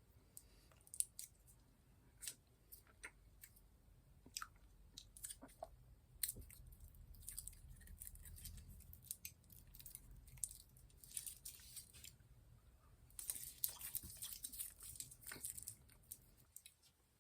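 A person chewing chocolate close to the microphone: faint, scattered wet mouth clicks and smacks, with a denser spell of crackling a few seconds before the end.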